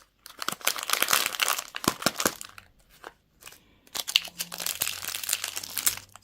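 Candy wrapper crinkling and rustling as it is handled and opened, in two stretches of dense crinkling with a short pause between them.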